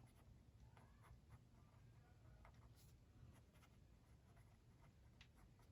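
Near silence with faint scratching and small ticks of a pen on paper.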